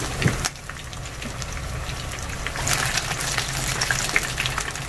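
Battered shrimp tempura deep-frying in hot oil: a steady sizzle full of small crackles, with a brief clack right at the start. The crackling grows livelier about halfway through as the drizzled batter fries into crisp fringes.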